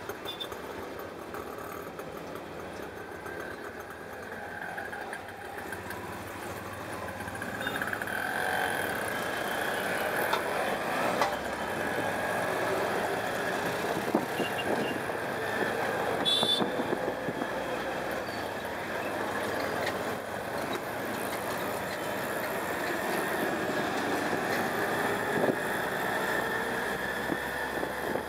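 Auto-rickshaw engine running amid street traffic, with road noise, growing louder about eight seconds in. There is a brief high-pitched sound about sixteen seconds in.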